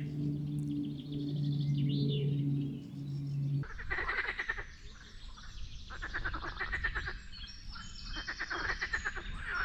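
A steady low hum with a few faint chirps, then, after an abrupt change, fast rattling animal calls in bursts about a second long, repeating roughly every two seconds.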